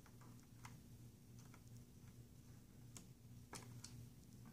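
Near silence with about half a dozen faint, irregular small clicks and ticks as a precision screwdriver backs a tiny screw out of the printer's plastic case, over a low steady hum.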